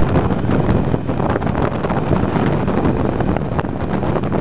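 Wind buffeting the microphone over a Harley-Davidson Iron 883's V-twin engine running at road speed.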